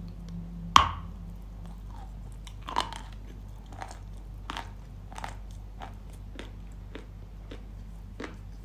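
A lump of dry Yampol eating chalk, coated in paste, bitten off with a loud sharp crack about a second in and a second bite near three seconds. Then steady crunchy chewing follows, about one crunch every two-thirds of a second.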